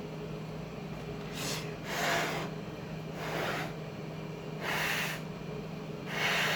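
A person's breath in five short, breathy puffs a second or so apart, over a steady low hum.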